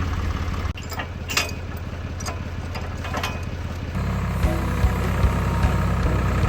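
Tractor engine running steadily, with a few knocks and clatters. The engine note gets louder and fuller about four seconds in.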